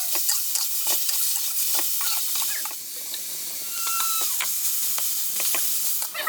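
Papaya stir-fry sizzling in a hot pan while a spatula stirs and scrapes it, giving a steady hiss broken by many quick clicks and scrapes.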